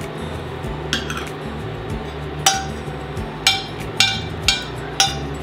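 Metal spoon clinking against a stainless steel pan and funnel while scraping thick tomato sauce into a jar. One faint clink comes about a second in, then five sharp, ringing clinks about half a second to a second apart in the second half, over steady background music.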